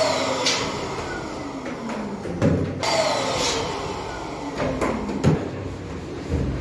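Small electric balloon pump whirring: its pitch rises, then winds down slowly, twice, the second time about three seconds in. Short knocks and rustles come from balloons being handled.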